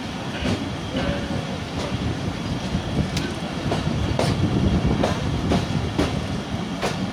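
Millat Express passenger coach running along the track: a steady low rumble with the wheels clicking over rail joints at uneven intervals, about once a second.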